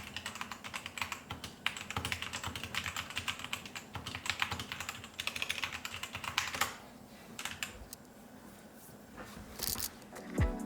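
Typing sound test on a Tecware Phantom mechanical keyboard with Outemu red switches and pudding keycaps: rapid, steady key clacks that stop about two-thirds of the way in, followed by only a few scattered keystrokes.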